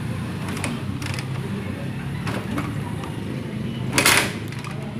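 Honda TMX155's single-cylinder four-stroke engine idling steadily, with a few faint ticks. About four seconds in there is a brief, loud rush of noise.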